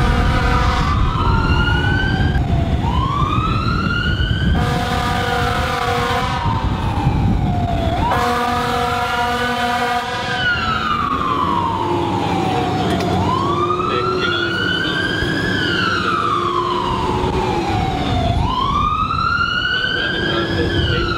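Fire engine siren wailing, rising and falling in pitch roughly every five seconds. Long blasts of the truck's air horn cut in three times, near the start, about five seconds in and about eight seconds in. A low engine and road rumble runs underneath.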